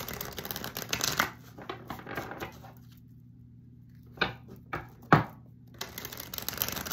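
A deck of oracle cards being shuffled by hand: stretches of dense, crackly card rustling, broken by a quiet pause and a few separate sharp taps in the middle.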